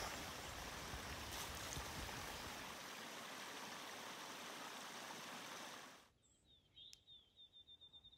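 Small cascade of a forest stream pouring into a pool: a steady rush of water that cuts off abruptly about six seconds in. Near silence follows, with a high, rapid bird trill near the end.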